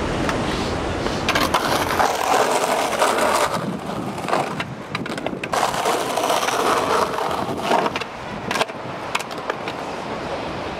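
Skateboard wheels rolling over the ground in stretches, with several sharp clacks of the board hitting and landing.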